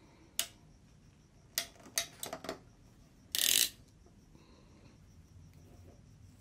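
Hand ratchet crimping tool clicking as its ratchet is squeezed shut on a wire splice: a single sharp click, then a quick run of several clicks, then one louder, slightly longer snap as the tool releases.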